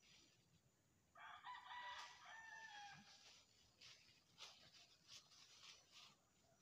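A rooster crowing once, starting about a second in and lasting about two seconds, followed by scattered faint clicks and rustles.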